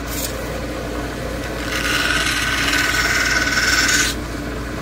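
Plume agate cabochon on a dop stick held against a spinning cabochon-machine wheel: a hissing grind from a little under two seconds in to about four seconds, over the steady hum of the machine's motor.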